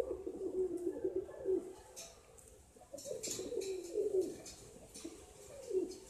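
Male Almond fantail pigeon cooing in low, warbling phrases: a long coo at the start, another about three seconds in, and a short one near the end.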